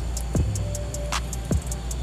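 Background music with a steady drum beat: deep falling bass-drum hits, a sharp snare hit about every second and a half, and fast hi-hat ticks over a held bass note.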